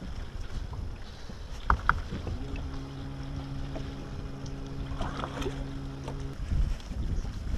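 A bow-mounted electric trolling motor hums steadily for about four seconds in the middle, starting about two and a half seconds in and cutting off near the end, over wind rumbling on the microphone. Two sharp clicks come just before the hum starts.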